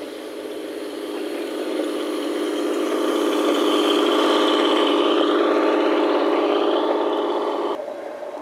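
Garden-scale model railcar of Rio Grande Southern Motor No. 1 running past on the track, a steady mechanical running sound that grows louder as it comes near, is loudest as it passes, and drops off suddenly near the end.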